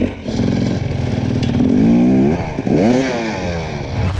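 Enduro dirt bike engine revving hard in repeated bursts, its pitch climbing and dropping several times, with one long rising rev around the middle.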